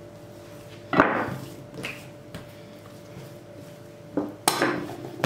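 Knocks on the kitchen worktop as a soft yeast dough is cut in two: one sharp knock about a second in, and a shorter knock followed by a brief scraping clatter near the end.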